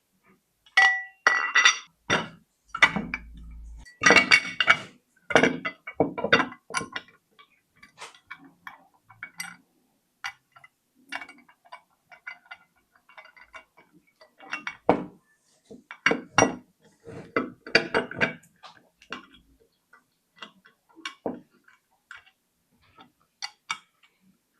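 Parts of a dual-monitor desk mount clinking and knocking together as it is assembled: an irregular run of sharp clinks, some briefly ringing, busiest in the first several seconds and again about 15 to 19 seconds in.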